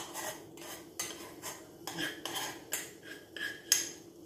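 Metal spoon scraping and clinking against a small saucepan as thick red chilli sambal is scraped out into a bowl: a quick run of short scrapes and taps, about two or three a second, the sharpest one near the end.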